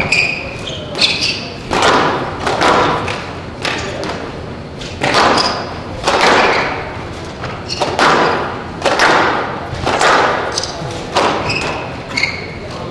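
Squash rally in a large hall: the hard rubber ball struck by racquets and smacking off the court walls about once a second, each hit ringing in the hall, with short high squeaks of the players' shoes on the wooden floor between shots.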